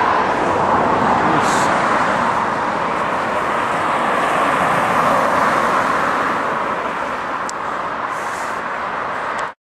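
Steady road traffic noise from passing cars, tyres on tarmac; it cuts off suddenly near the end.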